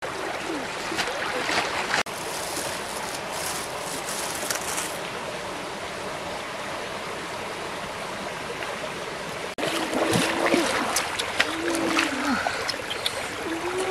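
Shallow stream water running and trickling over rocks, a steady rushing. From about ten seconds in, a few clicks and splashes of hands among the wet pebbles and brief wordless voice sounds.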